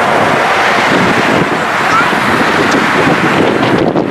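Steady loud rush of wind on the microphone, with faint voices of players and onlookers.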